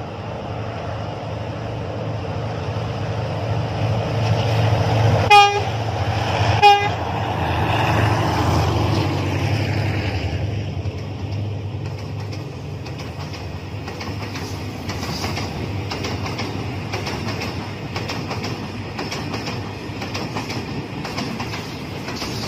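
A State Railway of Thailand diesel locomotive hauling a freight train approaches with its engine rumbling and sounds two short horn blasts about five and seven seconds in. After it passes, a long string of tank wagons rolls by with steady clickety-clack from the wheels over the rail joints.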